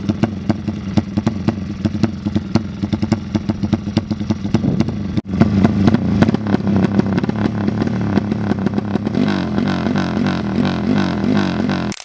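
Motorcycle engine running hard with a rapid clatter; from about nine seconds in its pitch rises and falls again and again as it is revved.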